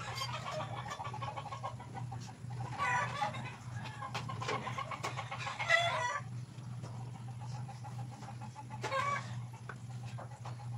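A chicken clucking in four short calls a few seconds apart, over a steady low hum.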